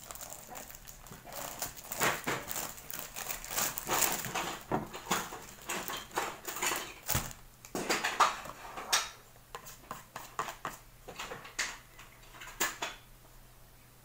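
Plastic wrapper of ontbijtkoek rustling as it is pulled open, with a table knife clicking and scraping against a plate. The sounds come in quick irregular clicks and crinkles and die away near the end.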